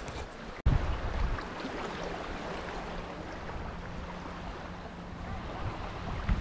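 Wind buffeting the microphone over small waves lapping on a shallow sandy shore, a steady rushing noise with a low rumble; the sound drops out briefly just under a second in.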